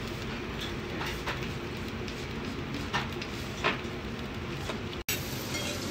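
Steady low rumble of a busy restaurant room with a few short clinks of tableware. The sound drops out for an instant near the end.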